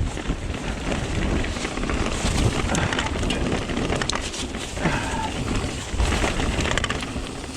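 Strong gusting wind buffeting the microphone, with a mountain bike's tyres and frame rattling and knocking over rough, rooty trail.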